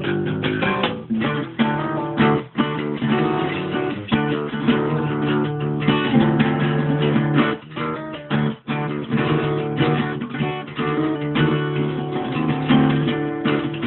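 Acoustic guitar being played, strummed chords mixed with picked notes in a steady jam.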